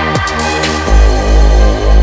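Electronic dance music: a steady synth, a quick falling pitch sweep just after the start, then a heavy bass drop coming in about a second in.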